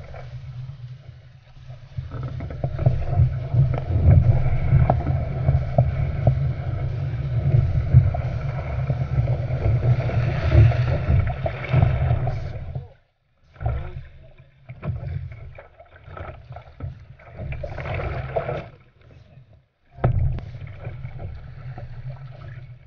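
Water rushing and splashing against the bow of an Epic V8 surfski paddled downwind through chop: a dense, low rumbling wash that drops out briefly twice in the second half.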